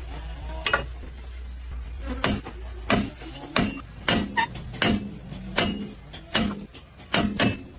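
Hammer blows on metal, about one every three-quarters of a second, each with a short ring, over a steady high-pitched insect drone.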